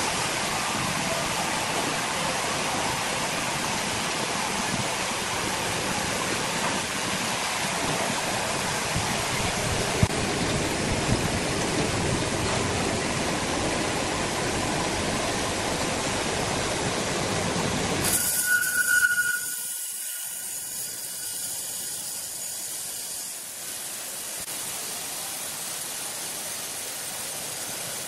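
Large horizontal band sawmill running, its blade cutting lengthwise through a huge log: a steady, dense whir of blade and machinery. About two-thirds of the way through, the sound abruptly drops to a quieter, thinner hiss.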